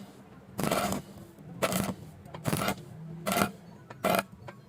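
Stick welding arc with an E6013 rod struck in short repeated bursts, about once a second, six times, each a brief crackle, over a steady low hum. This is the stitch-welding rhythm used to avoid burning through 1 mm thin sheet.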